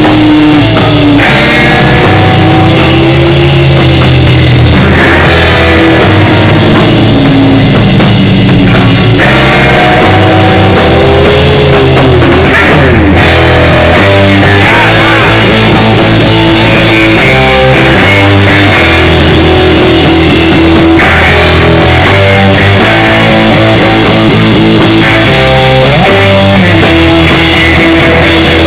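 Instrumental rock band playing live: electric guitar lines with sliding, bending notes over bass and a drum kit, very loud.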